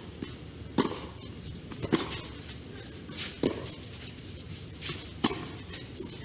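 Tennis ball being struck back and forth with racquets in a baseline rally: four sharp hits, each about a second and a half apart.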